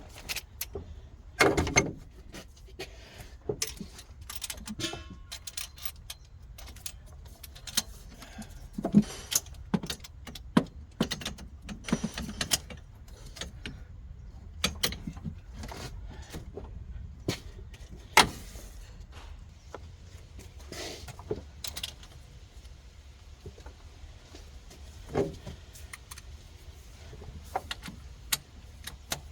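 Irregular metallic clinks, taps and knocks of hand tools against engine parts while camshafts are tapped loose and removed from a Ford 3.0L EcoBoost V6, with the loudest knocks about two seconds in and near the middle.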